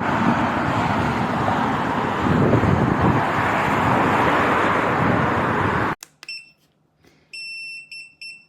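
A loud, even rushing noise that cuts off suddenly about six seconds in. Then the electric scooter's electronic beeper sounds a run of short, high beeps, about three a second, over a faint low hum, like the turn-signal indicator beeping.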